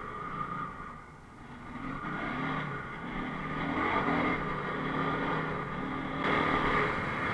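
Enduro motorcycle engine running and revving, its pitch rising and falling with the throttle. It eases off about a second in, then picks up again.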